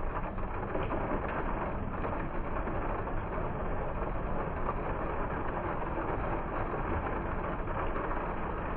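Steady, muffled hiss of rain or spray falling on a small roof shingled with flattened aluminium can tiles, with water running and dripping off the aluminium edge flashing.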